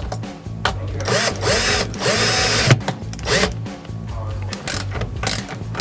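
Cordless drill-driver with a Phillips bit running in several short bursts, its motor pitch rising and falling, as it backs out the screws holding a kayak's oval hatch.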